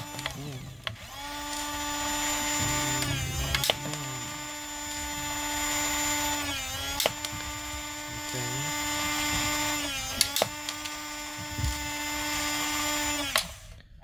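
Small electric gear motor inside a 1:32 RC T-90 tank whining steadily. Its pitch sags and then snaps back with a sharp click about every three seconds, three times, a pattern that fits the tank's motor-driven airsoft BB gun firing.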